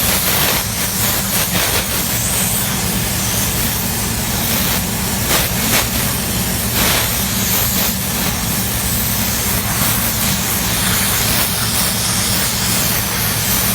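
Paint spray gun hissing steadily, with a low machine hum underneath, while the edges of moisture-resistant MDF board are spray-painted.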